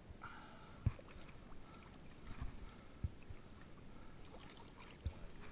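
Shallow river water sloshing and lapping around hands holding a steelhead in the current, with three soft low thumps about two seconds apart.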